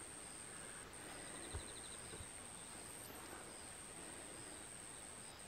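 Faint outdoor ambience of insects: a high, steady buzz that breaks off briefly every couple of seconds, and a short, rapid chirping trill about a second and a half in. Two faint taps come soon after.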